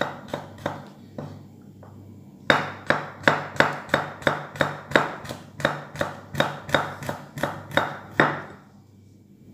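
Kitchen knife slicing garlic cloves on a wooden cutting board, each cut a sharp knock of the blade on the wood. A few cuts, a pause of about two seconds, then a steady run of about three cuts a second that stops about a second before the end.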